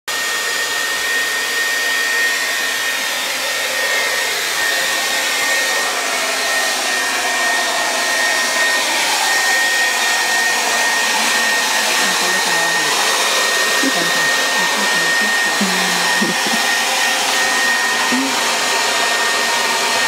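Handheld hair dryer running steadily as it blows a dog's curly coat dry: a rush of air with a steady high whine from the motor.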